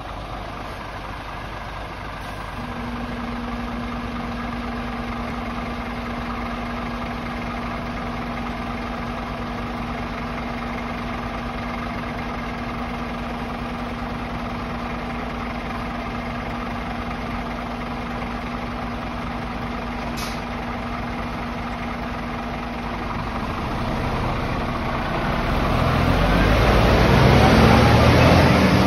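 Scania lorry idling steadily with a constant hum, then pulling away and passing close by. Near the end the engine gets louder and its note rises as it accelerates.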